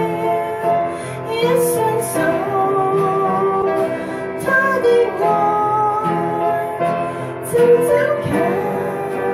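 A woman singing long held notes into a microphone, accompanied by piano and acoustic guitar.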